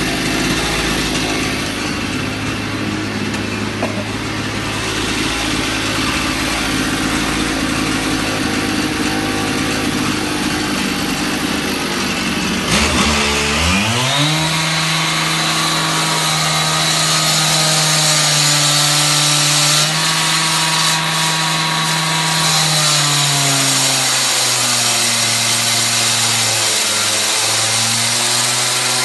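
K12 concrete saw's two-stroke engine running steadily, then revved up sharply about 13 seconds in and held at high speed with a high whine; the pitch drops a little after about 23 seconds.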